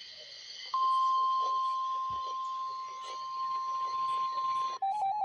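Weather-radio alert tone: a single steady high tone that comes on just under a second in and holds for about four seconds, the NOAA Weather Radio warning alarm that comes before a broadcast alert. Near the end it switches to a rapidly pulsing, lower beeping alarm.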